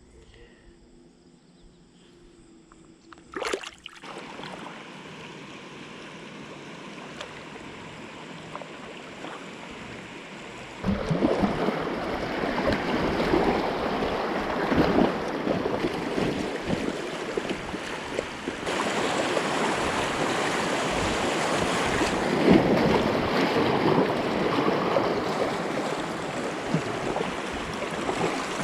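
Steady rushing of river water around a kayak, with wind on the microphone, growing louder about eleven seconds in and swelling unevenly. A single sharp click comes a few seconds in.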